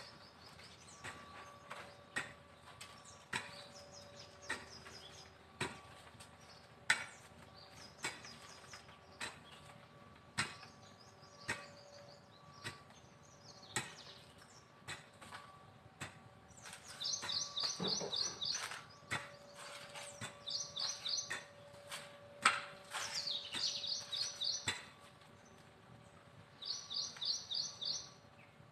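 A pickaxe striking into garden soil in steady strokes, about one every second or so. Birds chirp in repeated short trills between the strokes, more often in the second half.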